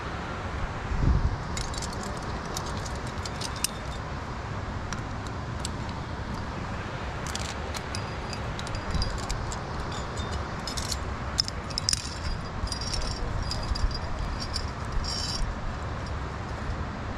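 Metal climbing gear, carabiners and quickdraws, clinking and jangling in irregular bursts, thickest in the middle of the stretch, over a steady low rumble. There is a low thump about a second in.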